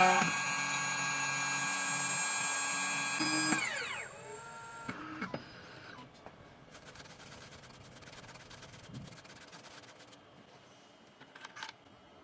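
Spindle motor of a 2m2tank CNC key cutting machine running with a steady whine while milling the V-shaped groove in a copper key blank, then winding down in pitch and stopping about four seconds in as the cut finishes. Faint fine ticking and a couple of small clicks follow.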